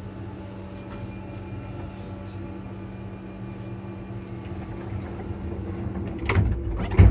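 Class 334 electric train running, heard from the gangway end of the carriage: a steady low hum with faint higher traction-motor whine. Near the end come two loud knocks less than a second apart.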